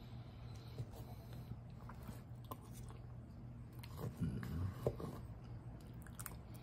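A person chewing a mouthful of macaroni and cheese with popcorn chicken, with soft wet mouth sounds and scattered small clicks. A low steady hum runs underneath.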